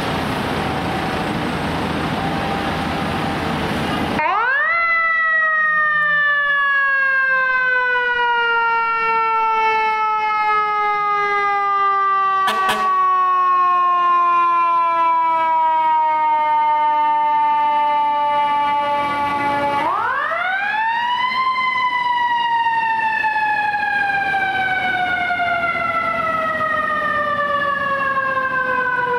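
A fire engine's mechanical siren winds up sharply about four seconds in, then coasts slowly down in pitch for about fifteen seconds. It winds up again near the end and slowly falls off again. Before the first wind-up there is a loud, even rumble of heavy truck engine noise.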